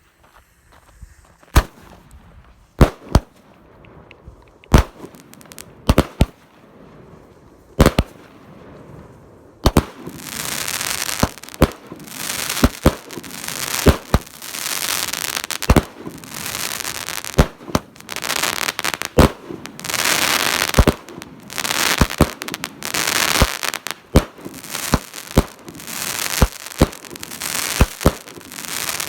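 A 200-gram consumer firework cake with half-inch tubes firing. First come single loud shots about a second apart. From about ten seconds in, a dense crackling with many sharp reports carries on.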